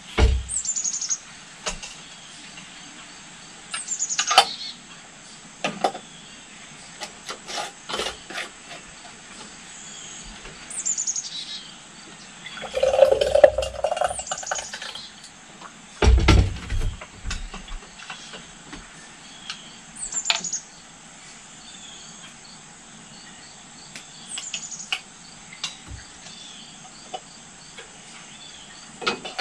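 Glass canning jars and a plastic canning funnel clinking and knocking as applesauce is ladled in, with a thick pour from a plastic pitcher through the funnel about halfway and a heavy thump a little later. Birds give short, falling chirps every few seconds over a steady high insect drone.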